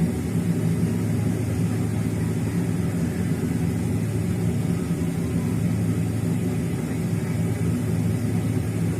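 Airliner engines droning steadily inside the cabin: a low, even hum with a few steady tones.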